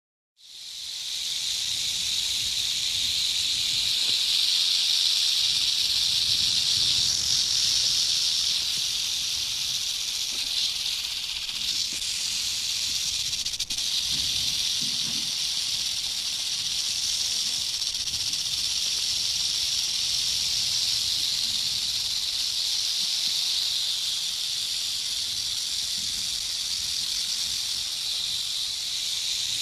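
Rattlesnake buzzing its tail rattle: a continuous dry, high buzz that starts abruptly and holds steady.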